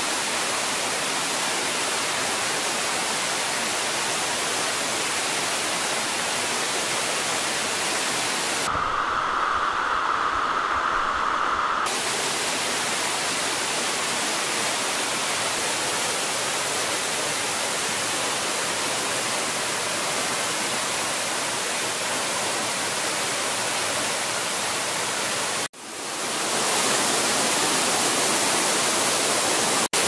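Steady rush of water from a rocky forest stream and small waterfall. For about three seconds, a third of the way in, it narrows to a duller, mid-pitched hiss. It cuts out for an instant near the end and comes back slightly louder.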